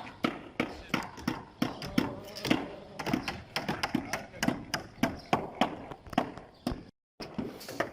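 Hammer blows on wood and nails, a few a second in an uneven rhythm, with voices underneath. This is typical of building wooden concrete formwork.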